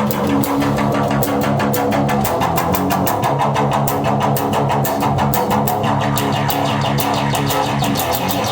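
An instrument, heard by PANN as guitar, played through a Polivoks-type analogue filter: low sustained notes under a fast, even ticking pulse, with the filter sweeping the tone.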